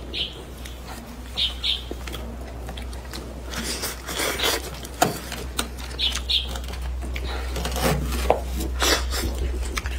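Close-up eating sounds of a person sucking meat off a chopped-chilli steamed fish head and chewing it: short wet sucks, smacks and clicks in irregular bursts, with a longer sucking stretch about four seconds in. A low steady hum runs underneath.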